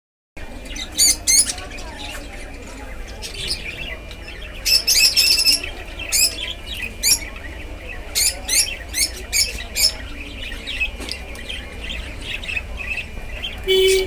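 Rosy-faced lovebirds chirping: shrill, sharp chirps in quick clusters with short pauses between them.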